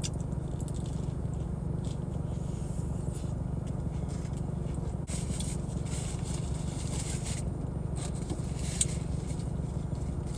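Steady low rumble from a car left running while parked, which the owner thinks comes from the air conditioning. A few faint scrapes or rustles come in over it near the end.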